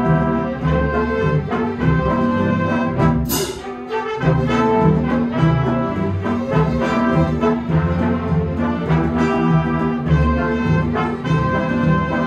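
Full symphony orchestra playing a lively dance movement: bowed strings and brass in short, rhythmic repeated chords, with one sharp bright hit about three seconds in.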